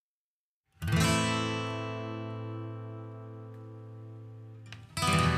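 Intro music: an acoustic guitar chord strummed about a second in and left to ring and fade, then a second chord strummed near the end.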